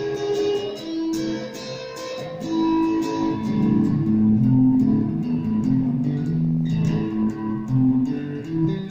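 Revelation RJT60 electric guitar played through a Vox Tonelab modelling processor: single picked notes and short melodic phrases ringing into each other, busiest and loudest in the middle.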